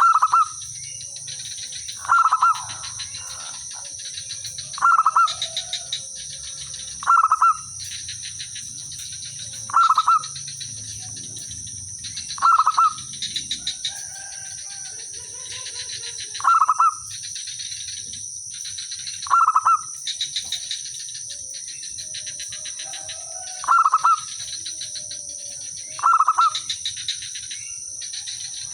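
Zebra dove singing: a short, loud cooing phrase of rapid notes, repeated ten times at intervals of about two to four seconds, over a steady high-pitched whine.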